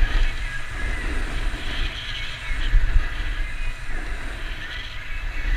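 Skis scraping and hissing over packed snow during a fast downhill run, with wind buffeting the camera microphone in an uneven low rumble, strongest at the start and about three seconds in.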